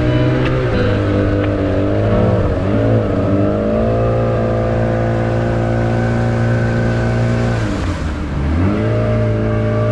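Motorboat engine running at a steady pitch, with its note easing down and climbing back up about eight seconds in as the throttle is backed off and opened again.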